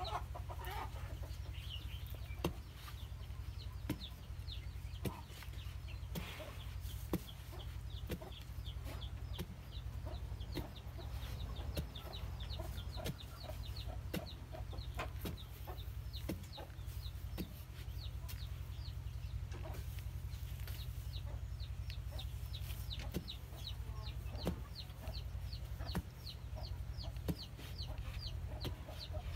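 Chickens clucking, with rapid runs of short high cheeps, while a metal bar knocks into packed dirt every second or two as a post hole is dug.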